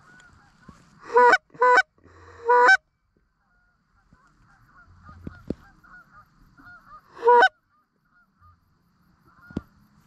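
Goose honking: four loud, short honks, three in quick succession in the first three seconds and one about seven seconds in, over fainter, continual goose calling.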